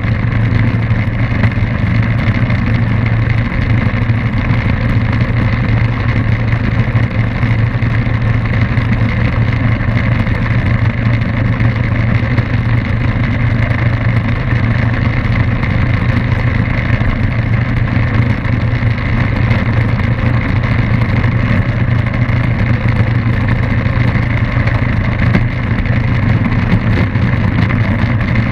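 Light high-wing aircraft's engine and propeller running steadily at a constant, low-pitched drone, heard from a camera mounted outside on the airframe.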